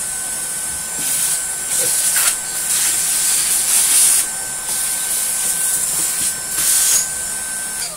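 Numatic NBV190NX cordless Henry vacuum running with the crevice tool on the hose: a steady high motor whine under a loud rush of air that surges and dips several times as the nozzle is moved. It is switched off near the end and the whine stops.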